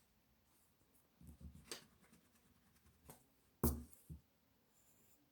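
Faint handling sounds of drawing: a soft rustle and a few short taps and knocks, the loudest about three and a half seconds in.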